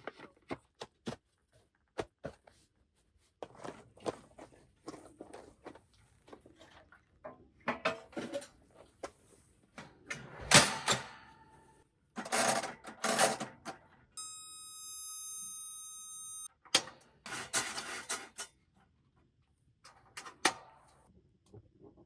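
Clicks, rustling and clattering of objects being handled, with a few louder bursts of handling noise. About two thirds of the way in, a steady tone sounds for about two seconds and cuts off suddenly.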